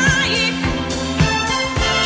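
Background music with drum hits on a steady beat and a wavering melody line near the start.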